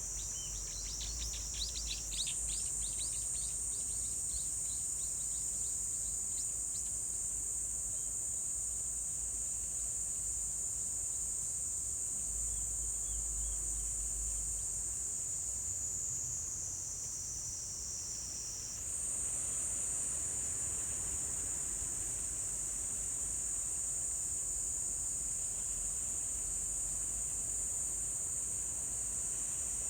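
Insects trilling in one continuous high shrill drone. About two-thirds of the way through, the pitch sags lower and then jumps back up. In the first few seconds a quick run of short chirps sounds over it.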